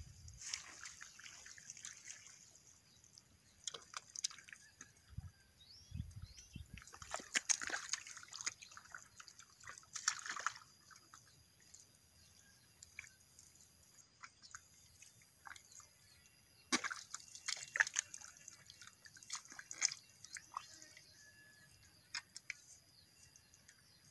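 Wet mud and water squelching and splashing in irregular clusters of short smacks as rice seedlings are pushed by hand into a flooded paddy.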